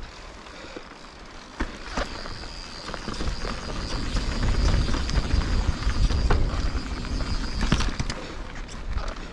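Yeti SB150 mountain bike riding down a dirt singletrack: a low rumble of tyres and air on the bike grows louder from about two and a half seconds in, with scattered knocks and rattles of the bike over bumps. A thin, high, steady whine runs through the middle and stops near the end.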